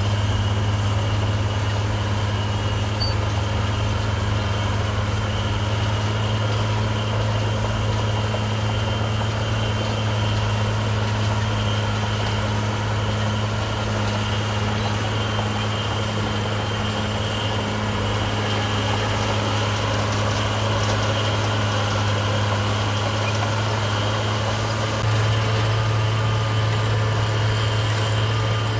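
Heavy diesel engine of an earthmoving machine running steadily with a deep, even hum and a faint high whine, a little louder near the end.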